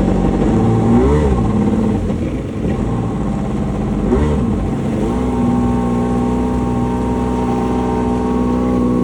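Jet ski engine revving up and dropping back twice, then held at a steady pitch from about five seconds in.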